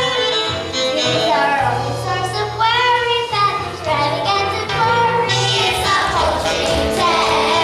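Children singing a song with musical accompaniment, a sung melody over a steady bass line.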